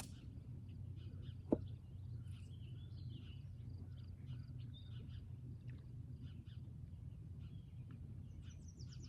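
Small birds chirping and calling throughout over a steady low rumble, with one sharp click about a second and a half in.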